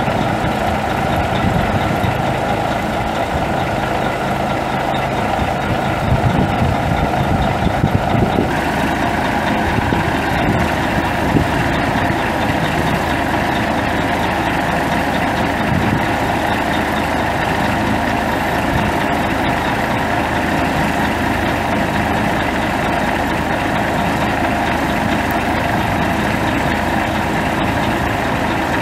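1989 Mack DM690S truck's Mack EM6 11-litre inline-six turbo diesel running steadily, its tone shifting slightly about eight seconds in.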